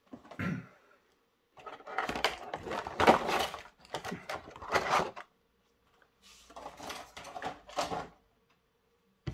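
Rigid clear plastic packaging tray from a model locomotive box crackling and rustling as it is handled, in three spells with short pauses between.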